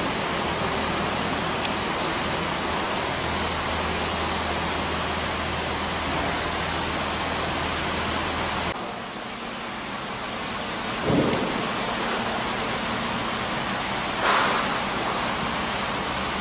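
Steady hissing machine noise with a low hum from an aluminium door lock-hole drilling machine left running while measurements are taken; about nine seconds in the low hum drops away. There are two brief knocks later on.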